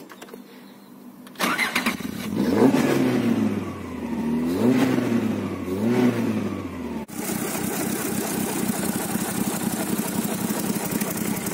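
A 2001 Caterham 7's 1.6-litre four-cylinder engine is cranked and starts about a second and a half in. It is then revved three times, the revs rising and falling each time. After that it settles to a steady idle.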